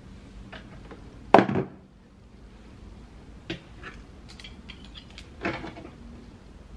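Hard knocks and clicks of hair styling tools, a flat iron and a hot comb, being put down and picked up on a tabletop. One sharp knock comes about a second in, then a few light clicks, and another clatter near the end.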